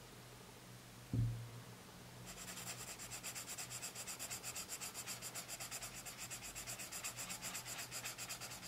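Prismacolor Premier colored pencil shading a swatch on sketchbook paper: quick, even back-and-forth scratching strokes, several a second, starting about two seconds in. A single low thump comes about a second in.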